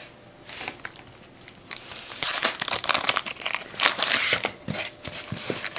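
Plastic crinkling and rustling as trading cards are handled, in irregular bursts that are loudest in the middle.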